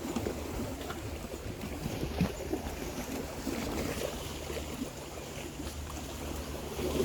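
Water sloshing and splashing around an elephant's legs as it wades through a pool, over a steady low rumble.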